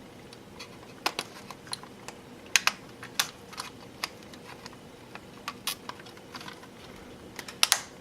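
Irregular light clicks and taps of small plastic model kit parts being handled and pressed together: a fuel tank detail part is being pushed into the underside of a plastic reefer car body. The loudest clicks come about two and a half seconds in and a cluster near the end.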